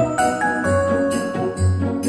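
Christmas music with jingle bells shaken in a steady beat over held melody notes and a bass line.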